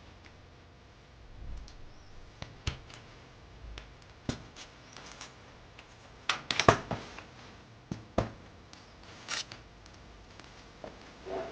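Objects being handled at close range: scattered irregular clicks, taps and brief rustles, with the loudest cluster of clicks a little past the middle.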